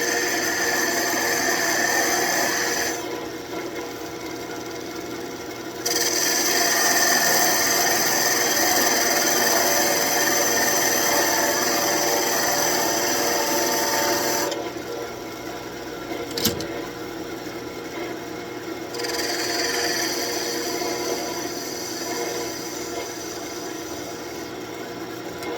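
Wood lathe running with a small gouge cutting a spinning birch branch: a hissing, scraping cut for the first three seconds, a long cut from about six to fourteen seconds, and a short one around nineteen seconds, with the lathe's steady hum between cuts. One sharp click sounds about sixteen seconds in.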